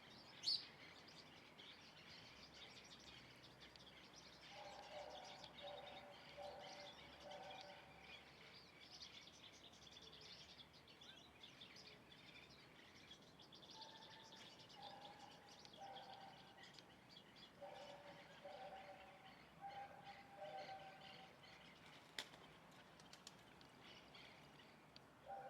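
Faint birdsong: many small birds chirping and twittering at high pitch, with runs of lower, repeated call notes coming in several times. A single sharp click about half a second in, and another near the end.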